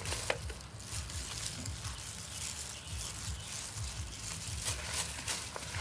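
A gloved hand tossing and pressing chopped herbs and small whole fish on a banana leaf, making soft wet rustling and squishing.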